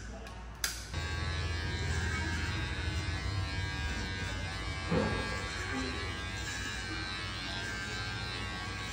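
Cordless electric hair clippers start up with a click about a second in, then buzz steadily as they clip a monkey's fur.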